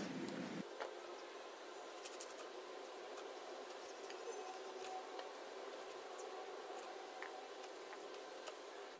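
Guava being sliced on a boti, a curved blade fixed upright on a wooden plank: faint scattered clicks and scrapes of the blade cutting firm fruit, over a low steady hiss.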